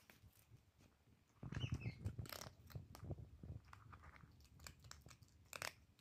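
A cat crunching dry kibble from a bowl: irregular crunching bites that start about a second and a half in and carry on to the end.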